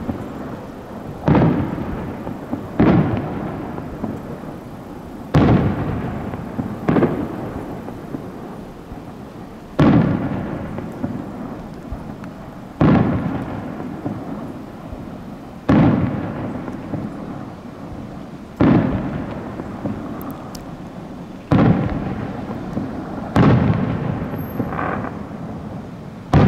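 Aerial fireworks shells bursting one after another, about every three seconds, each boom followed by a long rolling echo that dies away before the next.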